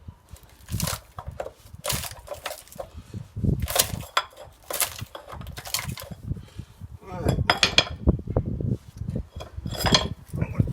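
Metal clanking and knocking as welded steel parts of a scrap transformer are prised and knocked off, a series of irregular sharp strikes with some metallic ringing.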